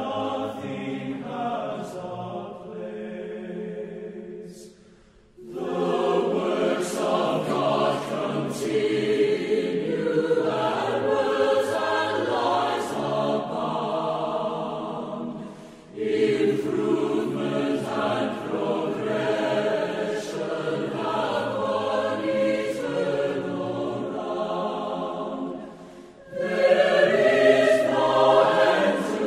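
Background choral music: a choir singing slow, sustained chords in long phrases, each breaking off briefly before the next begins, about five, sixteen and twenty-six seconds in.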